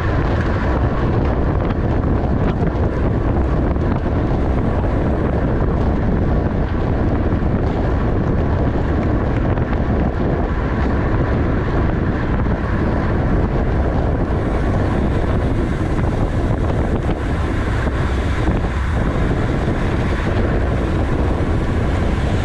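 Wind rushing over the microphone of a camera carried by a racing cyclist at speed: a loud, steady rush with a heavy low rumble.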